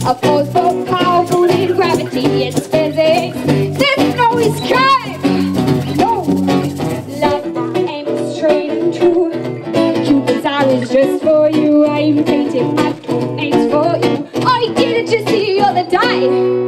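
Live acoustic pop performance: a young woman singing lead over strummed acoustic guitars.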